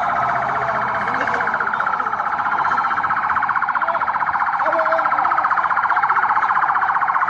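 An electronic alarm siren sounding without a break, a rapid pulsing warble.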